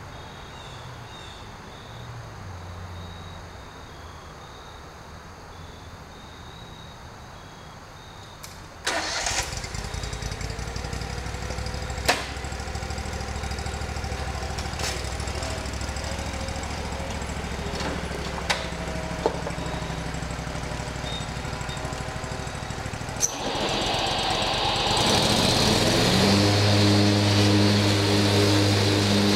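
A lawn mower's small petrol engine starts about nine seconds in, after a quiet stretch, and runs steadily at low speed with a few sharp clicks. Near the end it is throttled up to a louder, steady, higher-pitched run, ready for mowing.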